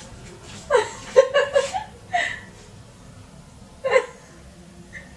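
A woman giggling in a quick run of short, hiccupping bursts about a second in, with a further brief laugh or vocal burst near four seconds.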